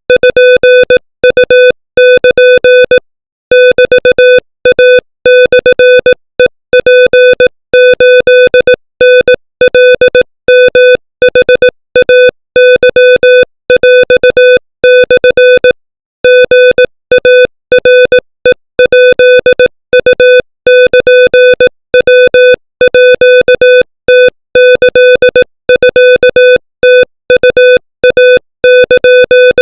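Morse code (CW) sent at 25 words per minute: a single buzzy tone keyed on and off in rapid dots and dashes, with short gaps between characters and longer ones between words.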